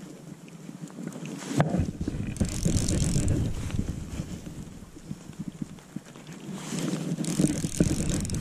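Wind buffeting the microphone in two gusts, a low rumble with a high hiss, mixed with rustling and small knocks from hands working a fly rod and reel close to the camera; one sharp knock about one and a half seconds in.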